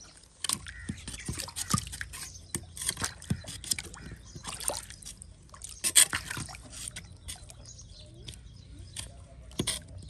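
A metal hand-tool blade scraping and chopping at wet mud and chopped fodder in a clogged drain channel to clear the blockage, a run of irregular wet scrapes and knocks with a little sloshing.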